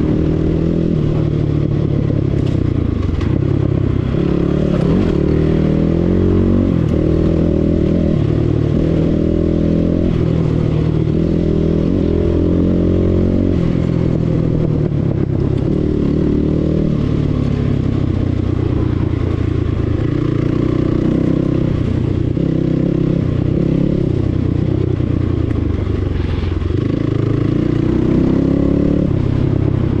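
Enduro dirt bike engine running under way, its revs climbing and dropping again and again as the rider works the throttle.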